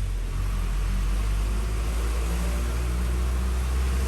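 Steady low engine and road rumble of a vehicle, heard from inside it while it drives.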